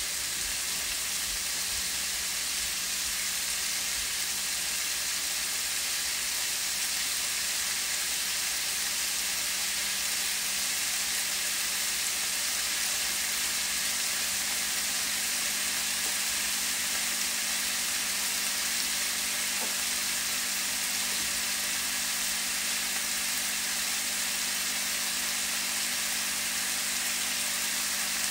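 Chicken pieces frying and browning in a hot pan: a steady sizzle, with a low steady hum underneath.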